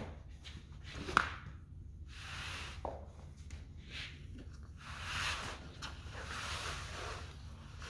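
A large sheet of upholstery vinyl is flung onto an MDF table top and spread flat by hand, rustling and sliding in several swells, with a sharp knock about a second in.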